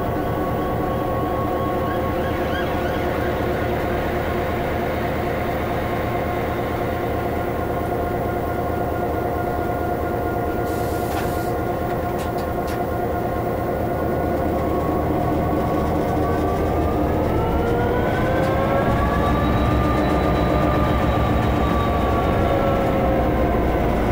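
Class 66 diesel-electric locomotive's EMD two-stroke V12 engine heard from inside the cab, running steadily. From about two-thirds of the way in it revs up, rising in pitch and getting a little louder. A few sharp clicks come about halfway through.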